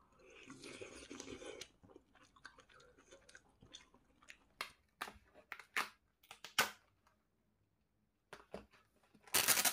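Crunchy food being bitten and chewed close to the microphone. A rustling crunch comes in the first couple of seconds, then a run of sharp crackling crunches from about four to seven seconds, and a louder crunch near the end.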